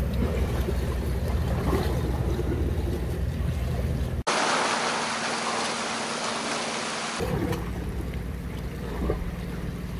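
Sea surf washing against rocks under a low rumble of wind on the microphone. A little over four seconds in, the rumble cuts off abruptly and only the hissing wash of the surf is left for about three seconds, then the rumble comes back.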